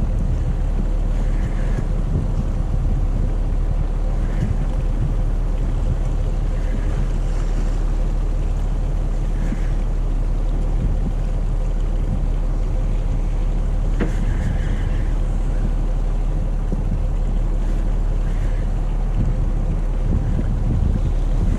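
Wind rumbling on the microphone over a steady low hum from the fishing boat, with a single sharp click about fourteen seconds in.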